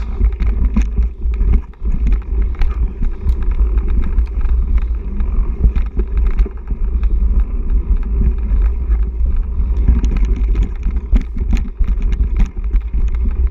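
Wind rumble on the microphone of a cross-country mountain bike riding fast over rooty dirt singletrack, with the bike's rattling and frequent sharp knocks as it runs over the roots.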